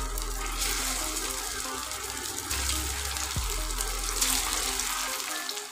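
Poha cutlets sizzling in hot oil in a frying pan as they are laid in one after another, the hiss swelling and easing. Background music with a steady bass plays throughout.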